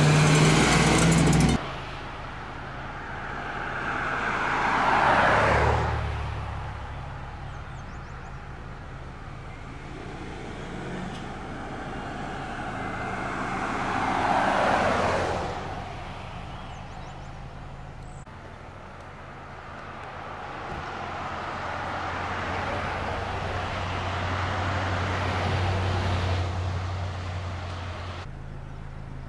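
Vehicles passing on a road, over a steady low hum. It opens with a loud rush of noise that cuts off suddenly. Then two vehicles go by about 5 and 15 seconds in, each swelling and dropping in pitch as it passes, and a longer, gentler swell of traffic noise follows later.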